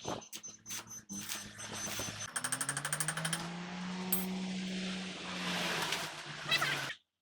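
Workshop sounds around a truck: scattered clicks and knocks, then about two seconds in a brief rapid rattle, followed by a steady mechanical hum that rises slightly and cuts off suddenly near the end.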